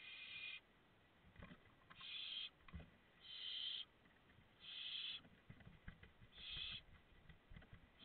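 Barn owl chicks' hissing, snore-like begging calls, five short rasping bursts at a steady rhythm about every second and a half, with soft bumps of owls shifting in the wooden nestbox between them.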